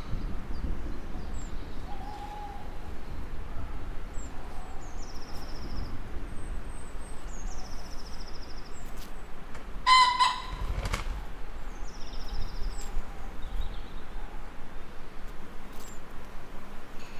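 Birdsong: short high trilled phrases repeated every few seconds, with scattered thin chirps, over a steady low rumble. About ten seconds in, one louder, harsher call of about half a second stands out.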